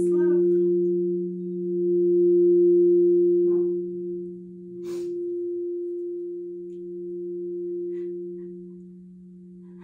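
Crystal singing bowls ringing in two steady, pure tones that swell and then slowly fade away. A brief light click sounds near the middle.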